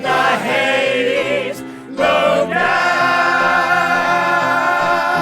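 Musical-theatre ensemble singing with backing music, settling about two seconds in onto a long held chord.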